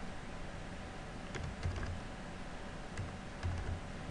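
Typing on a computer keyboard: scattered, irregular key presses entering numbers, with dull low thuds beneath the clicks.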